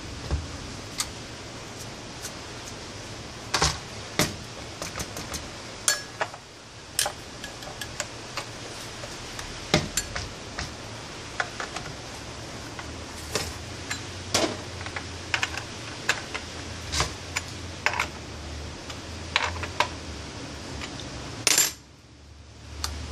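Irregular light metallic clicks and clinks as a saw chain and a steel T-handle wrench are handled against a metal workbench while the bar and chain are fitted to a Stihl MS 193 chainsaw, with one brief louder scrape near the end.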